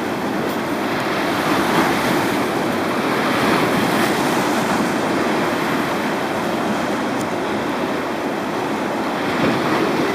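Fast-flowing river water rushing steadily past the bank, an even watery noise.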